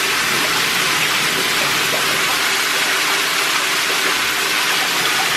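Water running hard from a bathtub tap into a shallow bath, a loud, steady rush.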